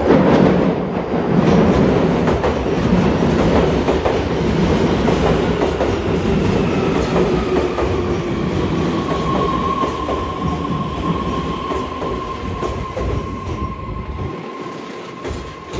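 Subway train pulling into an underground station platform, its wheels clicking over the rail joints. A steady whine comes in about halfway, and the noise slowly dies down.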